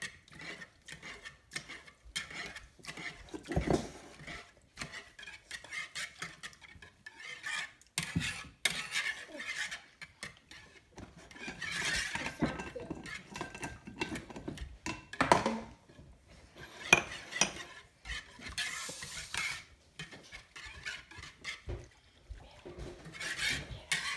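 Kitchen utensils and dishes clinking and clattering as the mixture is stirred, in irregular knocks and scrapes with a few louder clatters.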